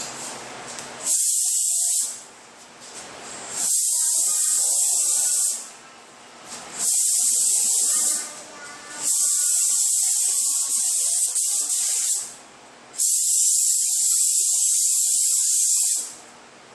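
Paint spray gun spraying epoxy primer in five separate passes, each a loud high hiss of compressed air lasting one to three seconds, with short pauses between them.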